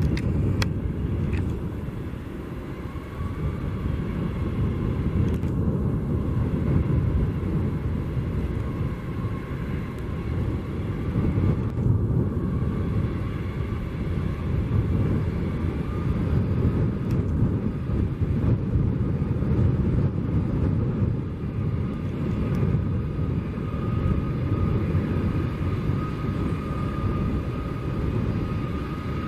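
Airbus A319 corporate jet's twin turbofan engines running at taxi power: a steady rumble with a thin engine whine that creeps slightly up in pitch and grows stronger toward the end.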